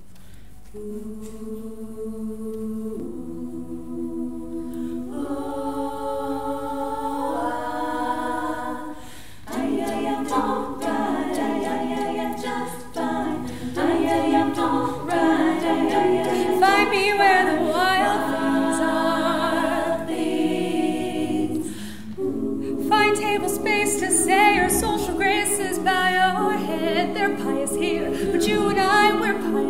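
All-female a cappella group singing: sustained stacked chords change every couple of seconds, then a lead voice sings a melody over the backing harmonies from about ten seconds in. After a brief dip near the end, the singing grows fuller and louder.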